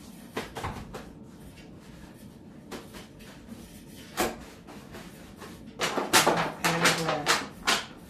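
Kitchen handling sounds: a few light, scattered knocks, then a dense run of clatter and rustling for about two seconds near the end.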